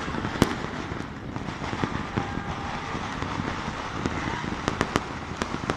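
Distant firecrackers and fireworks popping and crackling across a city at night, with a few sharp bangs about half a second in and several more near the end.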